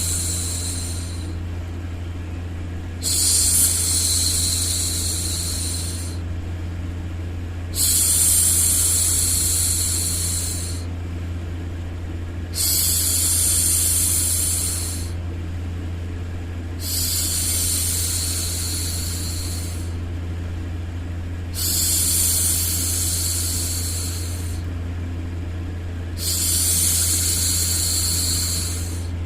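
A woman's drawn-out 'shhh' hushing sounds, each lasting two to three seconds and repeating about every four and a half seconds, over a continuous white-noise bed with a steady low hum.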